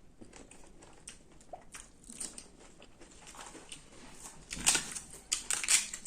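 Close-miked eating: crisp bites and crunchy chewing, sparse at first and louder and more frequent from about four and a half seconds in.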